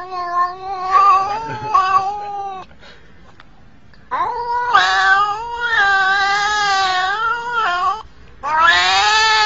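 Domestic cat yowling in long drawn-out calls: one of about two and a half seconds, a second of nearly four seconds starting about four seconds in, and a third beginning near the end, each wavering slightly in pitch.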